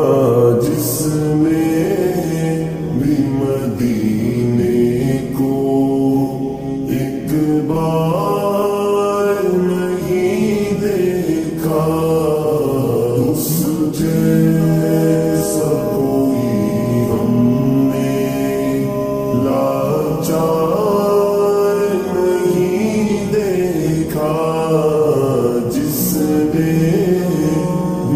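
A naat (Urdu devotional hymn) sung by voices without instruments, slowed down and heavily reverberated, in long phrases with sliding pitch.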